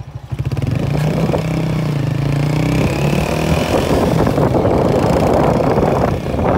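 Motorcycle engine running as the bike rides along. The level dips briefly right at the start, then the engine picks up again with a steady note. From about four seconds in, a thicker rushing noise takes over.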